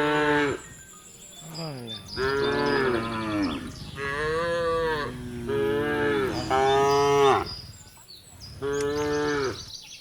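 Cattle mooing: a string of about six moos, each around a second long, one after another with short pauses between.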